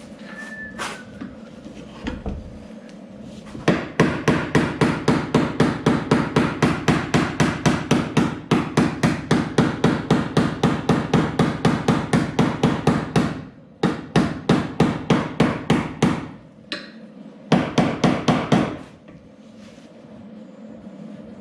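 Hammer blows on sheet-metal car body panel, quick and evenly spaced at about four a second, in three runs: a long one of about ten seconds, then two short ones. This is panel beating to work out a caved-in dent.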